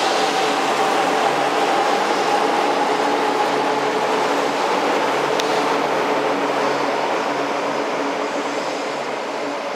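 E4 series Max double-deck Shinkansen pulling out of the platform: a steady motor whine over the rumble of the wheels, fading slowly as the last car moves away. There is a single faint click about five seconds in.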